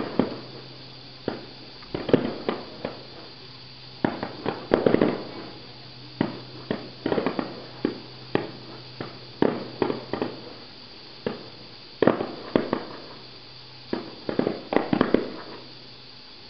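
Fireworks display: aerial shells bursting in rapid, irregular volleys, each bang trailed by a rolling echo. The bangs stop about a second before the end.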